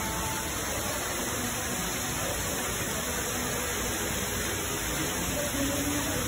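Indoor artificial waterfall pouring down a rock wall into a large aquarium: a steady, even rush of falling water.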